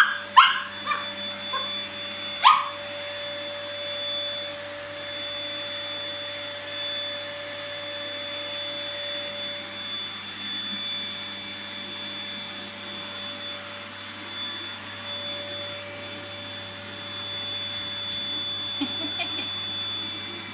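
Vacuum cleaner running steadily with a constant whine, while a toy poodle yips a few short, sharp times in the first few seconds.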